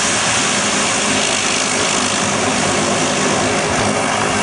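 The turboprop engines and propellers of a de Havilland Canada Dash 8 airliner on the runway, running with a steady drone and hiss.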